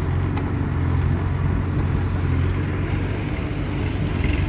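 Diesel engine of a Case 851EX backhoe loader running steadily with a deep, even throb.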